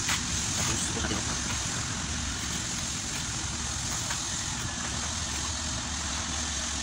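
Steady low drone of running machinery, with a few faint metal clicks as a screwdriver works the valve locks onto the valve springs of the cylinder head.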